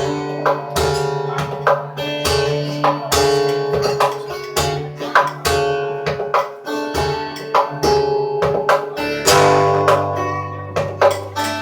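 Acoustic guitar and cello playing an instrumental tune: picked guitar notes in a steady pulse over long held low notes.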